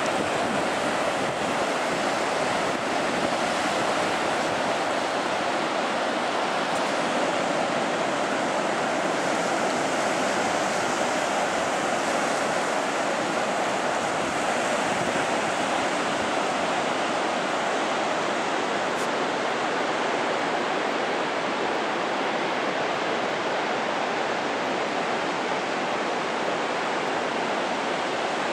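Atlantic Ocean surf breaking on a sandy beach: a steady, continuous rush of waves.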